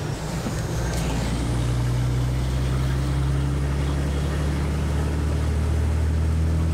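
Caterpillar 3406B diesel engine of a Kenworth K100 cabover, heard from inside the cab, pulling at a steady pitch as the truck drives. The engine note dips briefly and changes within the first second, then holds steady.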